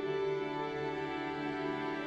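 Background music: slow, sustained instrumental tones.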